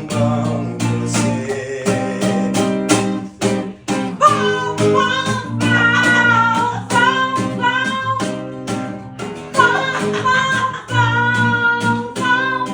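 A song with strummed acoustic guitar keeping a steady rhythm, and a voice singing the melody from about four seconds in.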